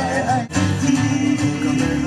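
Music: a voice singing over acoustic guitar, with a brief break in the sound about half a second in, after which the guitar strumming carries on.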